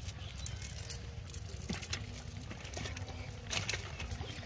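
Fish being handled: scattered taps, slaps and rustles as live fish are picked from a cast net and dropped into a bowl, with a couple of sharper snaps.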